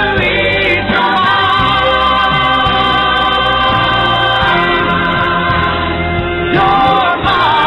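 Background music: a slow ballad with long held sung notes, one starting near the end with a wavering vibrato.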